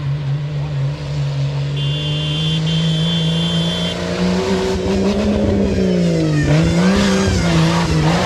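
Off-road race jeep's engine revving hard and growing louder as it climbs the dirt track. About six and a half seconds in, the revs drop and then climb again as it slides through the bend, with tyres scrabbling in loose dirt.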